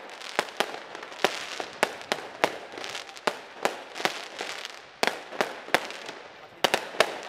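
Aerial fireworks display: a rapid series of sharp bangs, two or three a second, over a continuous crackle from bursting shells.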